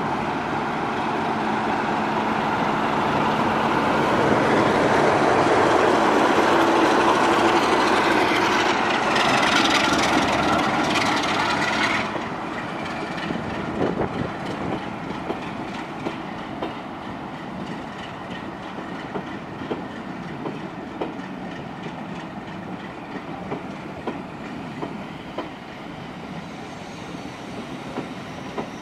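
Class 45 'Peak' diesel locomotive's Sulzer 12LDA28-B twelve-cylinder engine working hard as it accelerates away with its train, growing louder to a peak before dropping off sharply about twelve seconds in. After that, coaches roll past with a quieter rumble and repeated clacks of wheels over rail joints.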